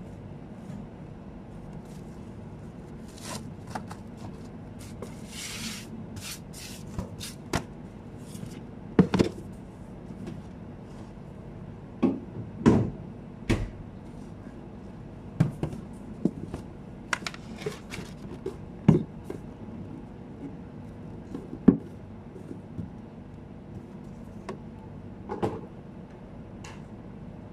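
Scattered knocks and clicks of bottles and plastic containers being picked up and set down on a kitchen work counter, irregular and a few seconds apart, with a brief hiss about five seconds in, over a steady low hum.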